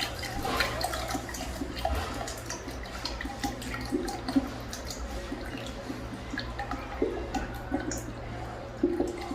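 Water rushing and gurgling through a valve-flushed toilet as the flush runs on, a steady wash with small gurgles and a low hum underneath.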